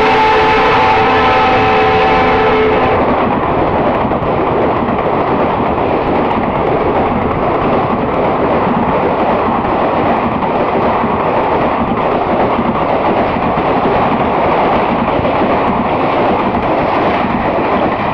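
Horn of a passing EMD WDP4D diesel locomotive, a chord of steady tones that cuts off about three seconds in. Then the loud, steady rush and rattle of the train's coaches going past at high speed.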